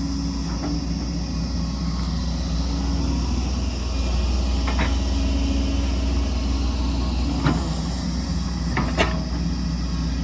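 Excavator's diesel engine running steadily under work, with a few short sharp clanks and knocks, two of them close together near the end.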